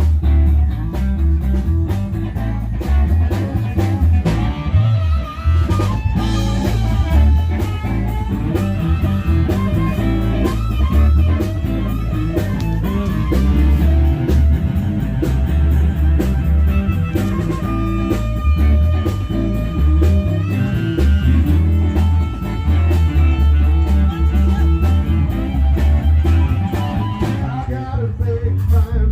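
A live band playing blues-style music: guitar over a steady, heavy bass line.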